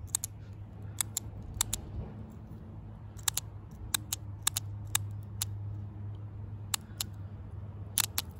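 Rover P4 80 carburettor fuel cut-off solenoid clicking as its needle plunger is pulled in and released by a 9-volt battery held to its terminals: a string of sharp clicks at irregular intervals, several in quick pairs. The clicking shows that the solenoid itself works.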